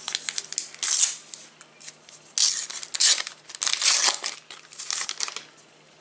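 Trading-card packets being torn open by hand: a series of short rips with crinkling wrapper, about five of them, dying away near the end.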